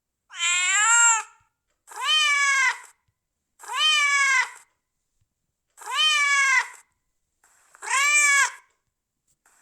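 Domestic cat meowing five times in a row, each meow about a second long, rising and then falling in pitch, with short silences between.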